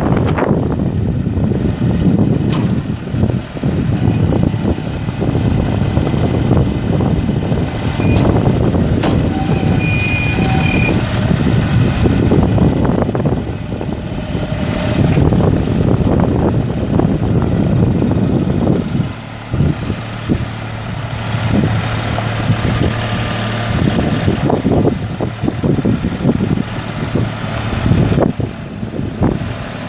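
Kubota D1803 1.8 L three-cylinder diesel engine of a Kubota L3560 tractor running as the tractor drives and works its front loader. About two-thirds of the way through, the engine settles into a steadier, slightly quieter hum.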